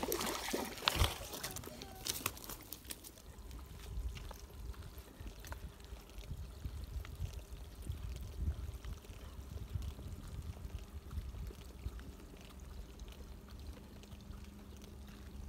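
A fish splashing at the surface of the water, loudest about a second in, followed by a quieter low rumble and faint trickling water.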